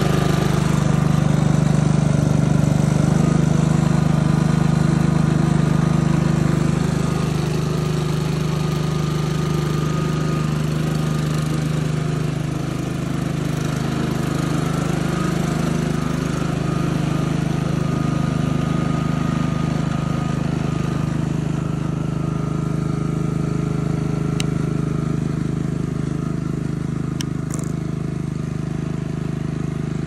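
Honda lawn mower's single-cylinder four-stroke engine running steadily, growing gradually fainter as the remote-controlled mower drives away.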